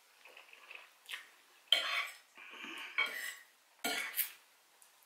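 A metal fork clinking and scraping against a ceramic plate while picking up fried noodles: a few sharp clinks with a short scrape in the middle.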